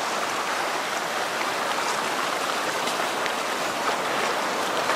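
Steady, even hiss of surf washing on a sandy beach.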